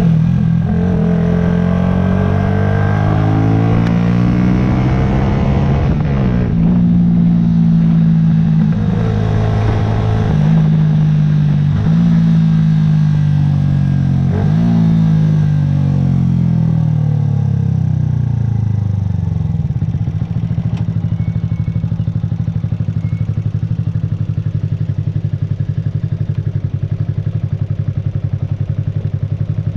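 2009 Yamaha YZF-R125's single-cylinder 125 cc four-stroke engine, ridden in traffic: revs rising and falling through the gears for the first twenty seconds or so, then dropping back and settling into a steady idle.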